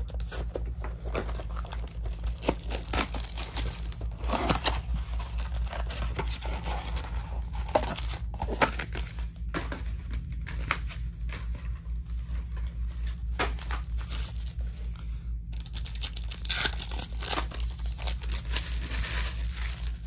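Plastic shrink-wrap and foil trading-card packs crinkling and tearing, a run of irregular rips and rustles as a card box is unwrapped and its packs are ripped open.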